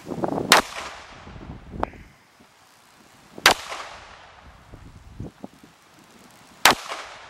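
Three gunshots, evenly spaced about three seconds apart, from a firearm fired at a paper target.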